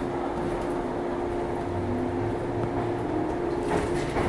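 JR East 115 series electric train standing at a platform, its equipment giving a steady hum, with a short clatter a little before the end.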